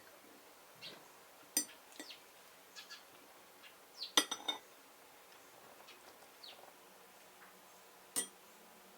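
Scattered light clinks and taps of small hard objects being handled, with the loudest cluster about four seconds in and a single sharp clink near the end.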